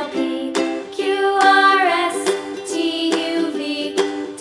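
Background music with a plucked-string melody and a steady beat.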